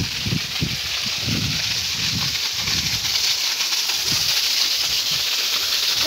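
Small waterfall splashing onto rock: a steady rushing hiss of falling water. Irregular low thumps come through it, mostly in the first half.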